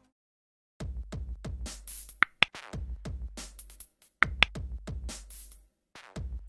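Electronic music with a drum-machine beat and heavy bass, starting about a second in, with pairs of short, sharp high clicks twice.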